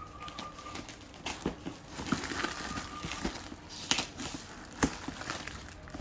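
Packaging being handled during a shoe unboxing: crinkling and rustling with scattered sharp taps and clicks, several of them standing out.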